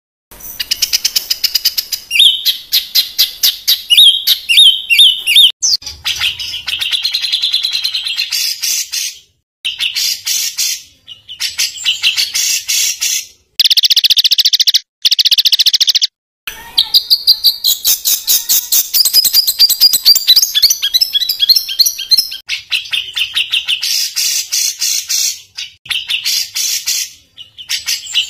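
A songbird singing loud, harsh rapid-fire song: runs of very fast repeated notes and chattering trills, the kind bird keepers call 'tembakan kasar'. The phrases follow one another in bursts, broken by a few sudden short silences.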